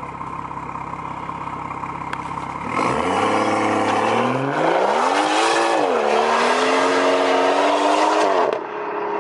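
Tuned Alfa Romeo Giulia's four-cylinder engine idling, then, about three seconds in, accelerating hard with its revs climbing. The pitch dips briefly about six seconds in, rises again, and the sound falls away sharply near the end as the car drives off.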